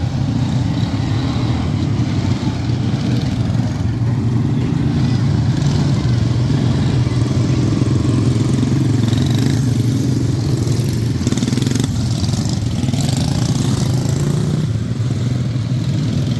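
A field of quarter midget race cars, their single-cylinder Briggs & Stratton Animal engines running together in a steady mixed drone as the pack circles the dirt oval.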